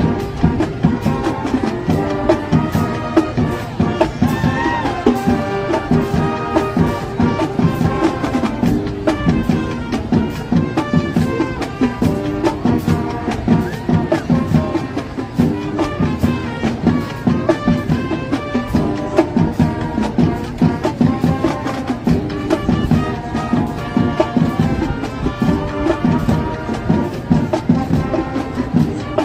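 Marching band playing, with brass over a steady drum beat.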